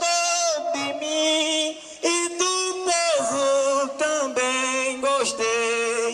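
A man singing a maracatu verse unaccompanied, in phrases of long held notes that step from pitch to pitch, with brief breaks between phrases.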